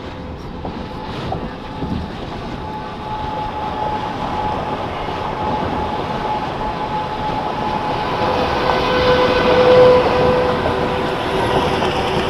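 Freeway driving noise from a car passing a semi truck: a steady rush of road and wind that builds and is loudest about ten seconds in, with faint steady tones held within it.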